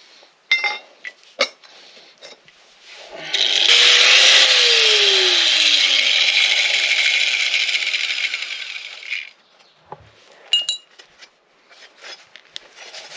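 Corded angle grinder cutting through a steel bar: the disc runs loud and steady for about six seconds, starting about three seconds in and stopping about nine seconds in. Short metallic clinks from the bar being handled come before and after the cut.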